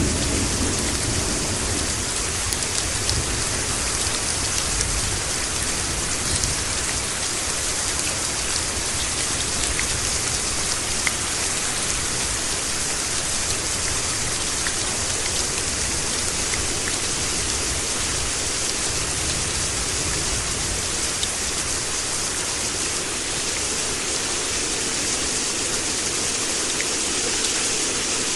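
Steady rain falling and pattering on surfaces, with a low rumble of thunder dying away in the first second or so.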